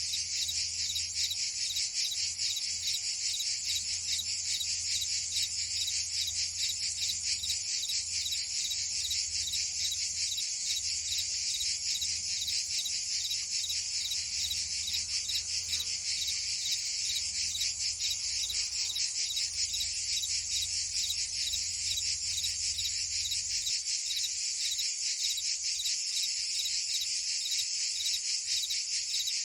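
Dense chorus of cicadas and crickets: a steady, high-pitched, rapidly pulsing buzz and trill that does not let up.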